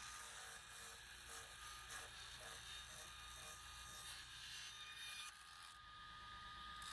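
Near silence: a faint steady hiss with a thin high tone running through it.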